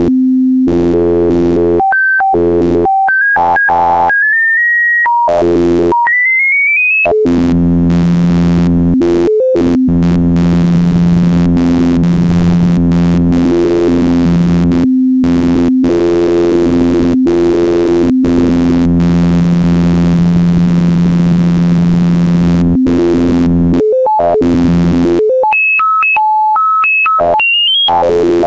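Synthesized electronic tones made by scanning the colours of a painting into sound: a steady low buzzing chord, broken by abrupt switches to single higher pitches that step upward in quick runs during the first seven seconds and again near the end.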